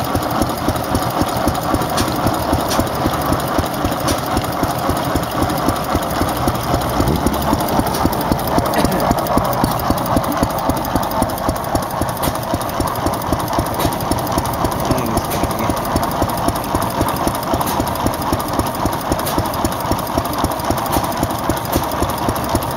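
1936 Austral N type 1.5 hp single-cylinder petrol stationary engine running steadily with an even, regular beat, running well.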